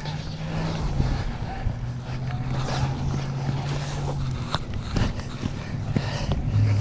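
Worn stock inline skate wheels rolling over rough concrete, a steady rumble with a low hum, over wind on the microphone. A few sharp clicks come about a second in and again around four and a half and five seconds.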